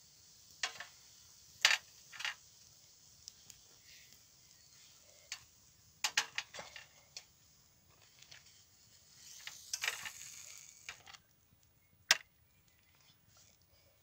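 Metal kebab skewers clinking against each other and against a metal tray as they are lifted off the coals and laid down. There are a few sharp separate clinks, a quick cluster about six seconds in, and a longer scraping clatter around ten seconds in.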